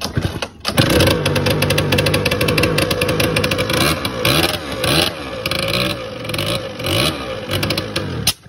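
Freshly rebuilt two-stroke scooter engine with a 19 mm carburettor starting on its first attempts: a few sputters, then it catches about a second in and runs, revving up and down unevenly, before cutting out suddenly near the end.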